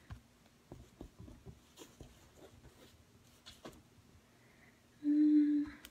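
Faint, scattered light taps and clicks of a paintbrush being handled against paint and canvas, then a brief steady tone about five seconds in.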